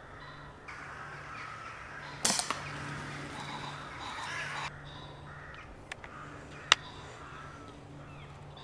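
Crows cawing in the trees while an FAC-rated air rifle fires once about two seconds in, a sharp crack that is the loudest sound. A second, shorter sharp click comes later.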